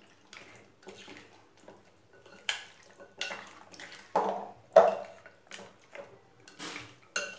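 A metal spoon stirs raw chicken lollipops through a wet, sticky egg-and-spice marinade in a glass bowl. It makes irregular squelching and slapping strokes, and the spoon now and then clinks against the glass.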